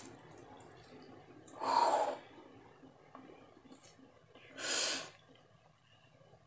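Two short, loud breaths close to the microphone, about three seconds apart, with faint small clicks from eating between them.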